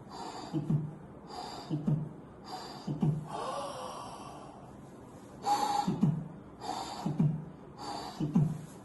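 A man imitating heart sounds with his mouth and breath: six short rhythmic beats about a second apart, each a low thud followed by a breathy whoosh, standing for a tricuspid regurgitation murmur. A longer breathy sound in the middle stands for an in-breath, the inspiration that makes this murmur louder.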